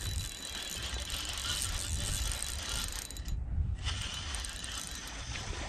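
Spinning reel being cranked, its gears whirring and clicking as line is wound in on a hooked fish; the sound cuts out briefly a little past halfway.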